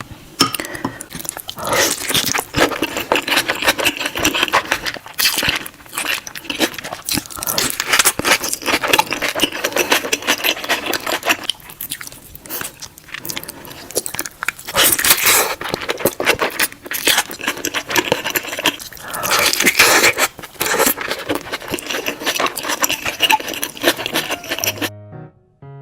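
Close-miked eating of saucy burgers: repeated bites and wet, crunchy chewing, with many small clicks and crackles. Just before the end it cuts to piano music.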